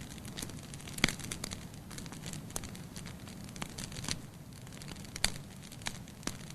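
Wood fire in a fireplace crackling: irregular sharp pops over a low, steady rumble. The loudest pops come about a second in and about five seconds in.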